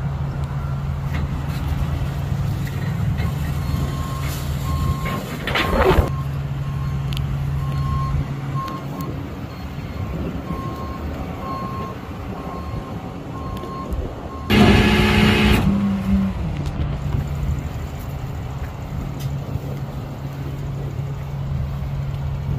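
Flatbed tow truck's engine running steadily, with its backup alarm beeping at an even pace for several seconds. A short swelling sound comes about six seconds in, and a loud rushing burst lasting about a second and a half comes about fifteen seconds in.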